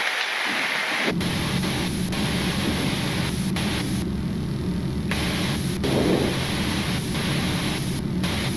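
Steady rushing air noise on a Boeing 777-300ER flight deck during the approach. About a second in, a low hum joins the hiss.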